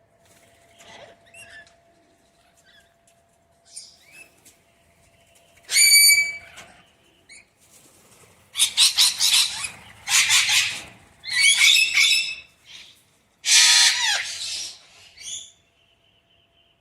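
Wild parrots calling: a few faint chirps at first, then loud, harsh screeching calls in repeated bursts through the second half.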